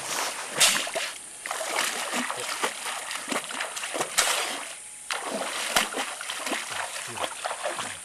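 A person wading and kicking through shallow muddy water, feet splashing repeatedly and irregularly, with a few louder splashes.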